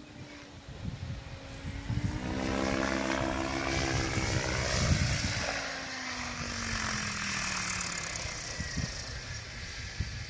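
Radio-controlled model helicopter running, its whine building and then falling steadily in pitch over several seconds as it comes down onto the ground.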